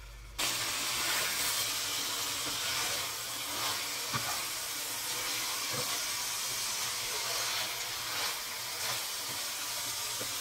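Marinated chicken pieces sizzling steadily as they fry in hot oil in a nonstick pan, with a couple of light taps of the spatula against the pan about four and six seconds in.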